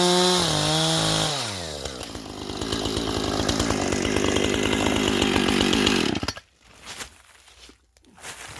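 Two-stroke chainsaw running at high revs, then throttle released about a second in so the engine note falls to a rattling idle, and switched off about six seconds in.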